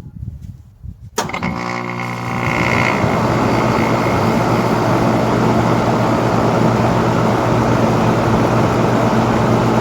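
Weatherking two-stage heat pump outdoor unit coming on about a second in with a sudden hum, then settling into a steady rush of fan air and compressor running at a constant level.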